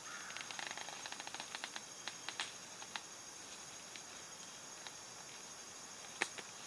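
Faint handling noise of tent fittings and fabric: a quick run of small clicks and rustles, then a few scattered clicks and one sharper click near the end.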